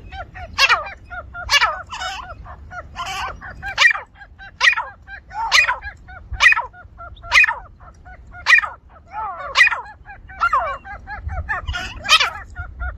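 Grey francolin calling: a loud, harsh call repeated about once a second, with quicker, lower chattering notes between the calls.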